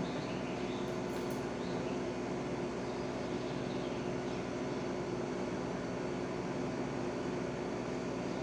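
Steady room hum and hiss with no distinct events, like a fan or air-conditioning unit running; no heart sounds can be made out.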